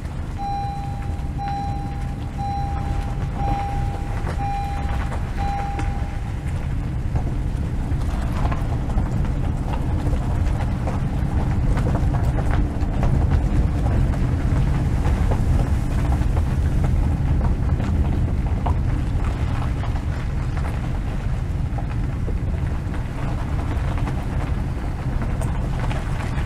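Steady low rumble, with six short electronic beeps about a second apart during the first six seconds.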